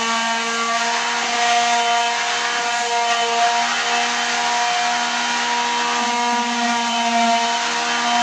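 A machine motor running steadily: a droning hum with several tones stacked above it, its pitch wavering slightly, over a rough noisy hiss.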